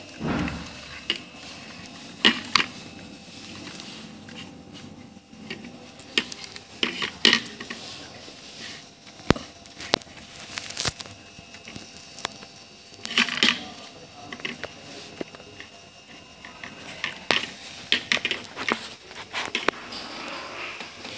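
Hands handling and twisting electrical wires and fitting them to a fan regulator in a wooden box: irregular rustles, scrapes and sharp small clicks, with a few of the clicks clustered near the middle.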